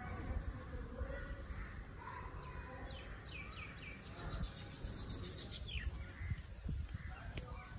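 A bird calling with a quick run of five or so short falling chirps, then another single falling call, over a steady low rumble of wind and handling on the microphone.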